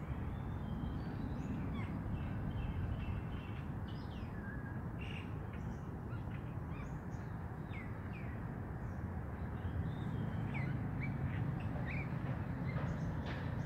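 Small birds chirping with many short, quick calls over a steady low background rumble, recorded outdoors on a smartphone microphone.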